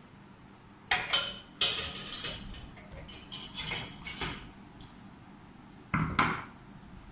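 Kitchen vessels and utensils clinking and clattering: two sharp knocks about a second in, a few seconds of busy clatter, then two more knocks near the end.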